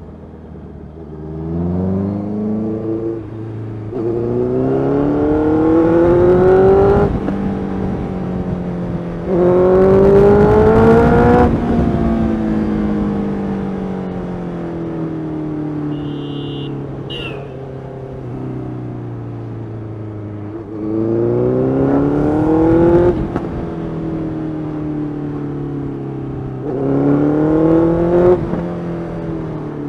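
Honda CBR650F's 649cc inline-four engine pulling hard through the gears: about five times the note rises steadily in pitch, then drops at the upshift, over steady wind rush. A short high double beep sounds about halfway through.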